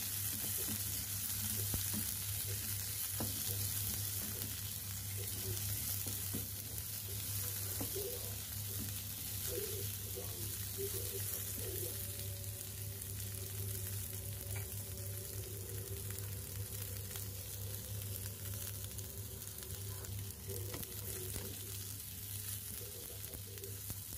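Green beans stir-frying in oil in a non-stick frying pan: a steady sizzle, with the light scraping and tapping of a wooden spatula turning them.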